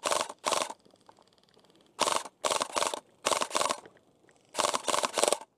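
Airsoft rifle firing close by in short bursts, about ten bursts in groups of two or three, each a sharp rapid clatter.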